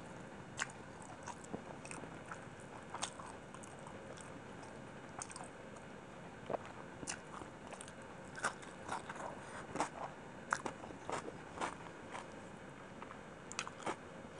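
Close-miked chewing and wet mouth smacks and clicks of a person eating chicken biryani by hand. Short sharp clicks come irregularly throughout and cluster most densely in the second half.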